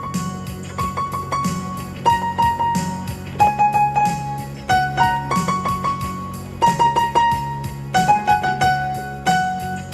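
Instrumental keyboard music in a worship song: a melody of held notes moving up and down over a steady chordal accompaniment, with no singing.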